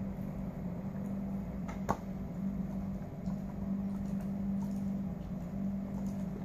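A steady low mechanical hum runs throughout. Over it, an Alaskan Malamute gnaws a hard chew treat held between its paws, making faint clicks of teeth on the treat and one sharper crack about two seconds in.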